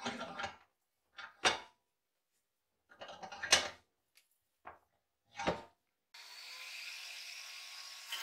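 A rusty steel shovel blade knocking and scraping against the vise and bench as it is set in place, several separate clunks, the loudest about a second and a half and three and a half seconds in. About six seconds in, an angle grinder starts running steadily without yet cutting.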